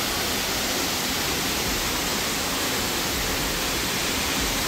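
Steady rushing roar of Jacko Falls, water pouring down into its pool, heard close with no change in level.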